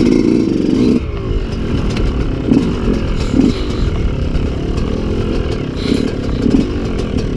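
Two-stroke enduro dirt bike engines running at rest, with short throttle blips now and then.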